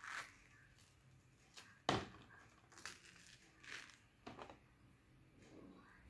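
Soft handling noises, as of food and its packaging being handled: a handful of scattered short clicks and crinkles, the loudest about two seconds in.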